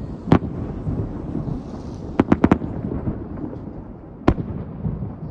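Fireworks shells bursting: one sharp bang, then a quick run of four bangs, then one more, over a continuous low rumble.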